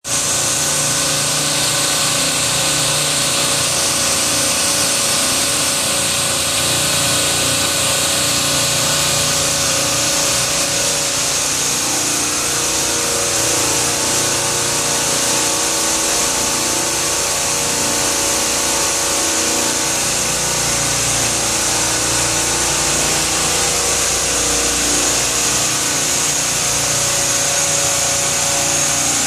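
Parallel rack refrigeration compressors running: a loud, steady mechanical noise with an even hiss and a few constant hum tones.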